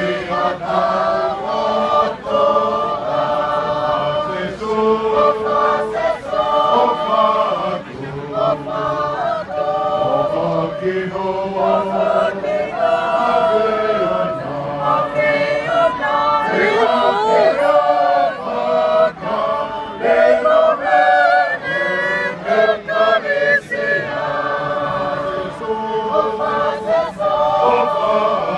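A crowd of Tongans singing together as a choir, many voices holding long notes in a steady, continuous song.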